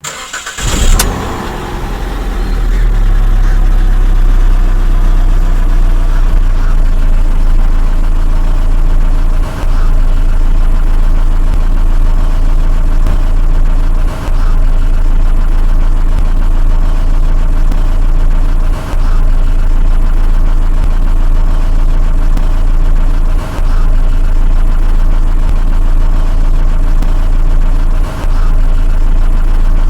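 Mitsubishi Xpander's 1.5-litre four-cylinder petrol engine cranking and starting, flaring about a second in, then settling within a couple of seconds into a steady idle. The idle has a brief dip in level about every four to five seconds.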